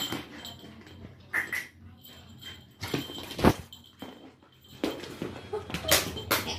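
Labrador puppy playing roughly with a toy on a tiled floor: scattered knocks, scuffles and paw scrabbles, the loudest knock about three and a half seconds in.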